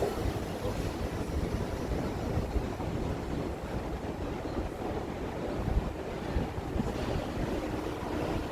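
Steady low rumble of city street noise, with wind buffeting the microphone.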